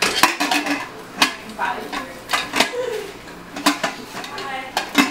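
Metal clinks and clacks of an aluminium stovetop pressure cooker's lid being handled, turned and locked onto the pot, several sharp knocks spaced about a second apart.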